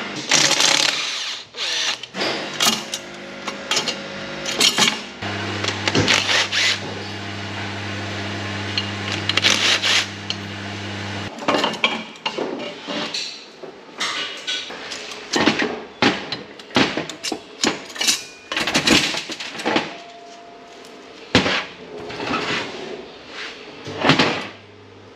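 Hand tools on metal: many sharp clicks and clanks of spanners and sockets as a turbocharged engine's exhaust manifold is unbolted and lifted off. A steady low hum runs for about six seconds in the middle.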